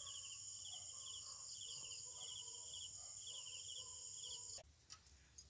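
Crickets chirping in short repeated trills over a steady high-pitched whine, stopping suddenly about four and a half seconds in.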